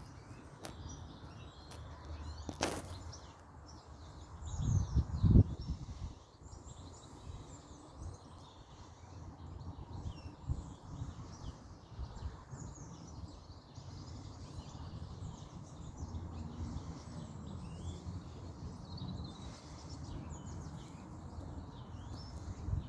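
Small birds chirping faintly and continually over a low rumble, with a louder dull thump about five seconds in.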